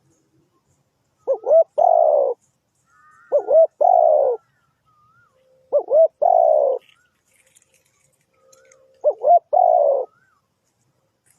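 Spotted dove cooing: four calls a couple of seconds apart, each two short rising notes followed by a longer, falling coo. Another bird chirps faintly in the background.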